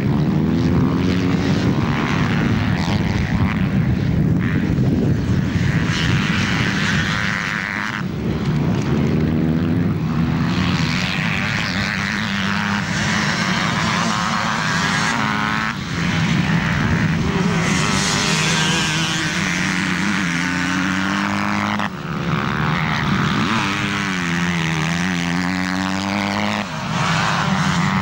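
Motocross bike engines revving hard and easing off through gear changes, the pitch climbing and dropping again and again. The sound breaks off abruptly and jumps a few times.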